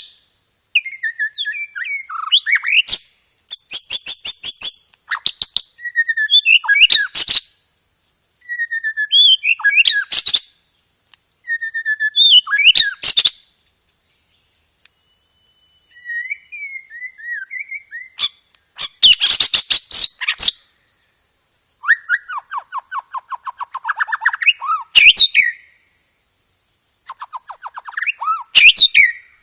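White-rumped shama (murai batu) singing loud bursts of song, mostly rapid rattling rolls of repeated notes mixed with sharp whistled and sliding notes, with brief pauses between phrases. A steady high-pitched tone runs underneath.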